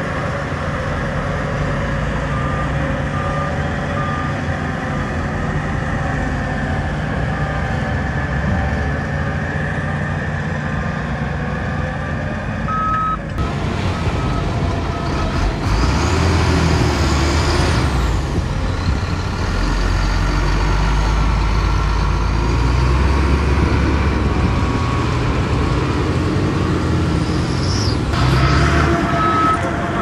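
Diesel engines of SHANTUI bulldozers and dump trucks running under load, with a reversing alarm beeping in short, evenly spaced tones at intervals. About halfway through the sound changes abruptly to a louder, deeper engine rumble.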